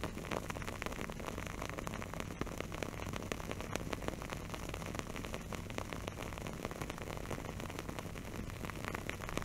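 Crackling single-ply wooden candle wick burning: a dense, irregular run of tiny pops and snaps over a steady background hiss.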